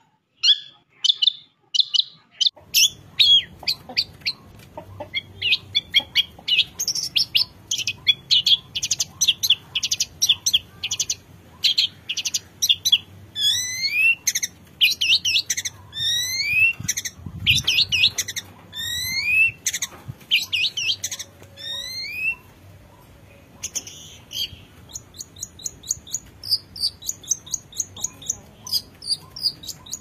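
Long-tailed shrike (cendet) singing a fast, varied chattering song packed with mimicked calls of other birds. A run of quick rising whistles comes in the middle.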